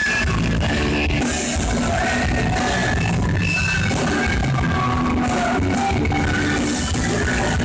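Rock band playing a song live, amplified and loud, recorded from the audience.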